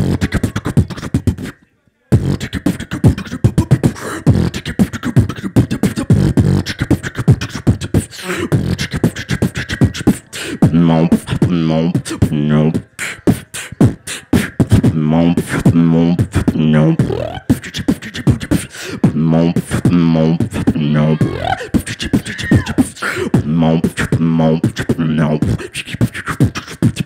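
Solo beatboxing into a handheld microphone: fast, dense kick, snare and hi-hat mouth percussion. After a brief break near the start it runs on without stopping, and from about ten seconds in it is layered with low hummed bass notes that bend in pitch in a repeating pattern.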